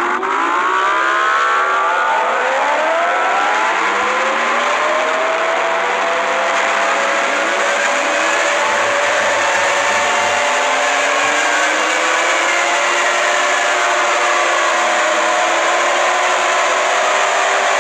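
Harsh alarm audio played as an Emergency Alert System-style alert: many overlapping tones slide up and down in pitch over a loud, steady hiss.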